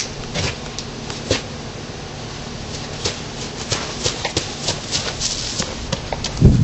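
Scattered knocks and scuffs from someone climbing a wooden fence and running, over a steady hiss, with one heavy low thump near the end.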